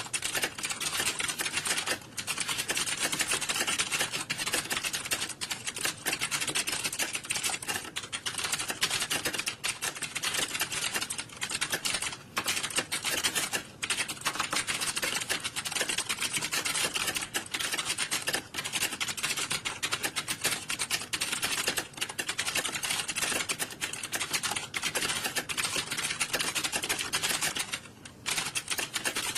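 Computer keyboards being typed on, a dense, continuous clatter of keystrokes like a hall full of exam candidates typing at once, with a few brief lulls.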